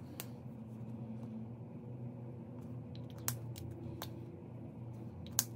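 A pen colouring in a paper savings tracker by hand: faint strokes on paper, with about four sharp taps spread through, over a low steady hum.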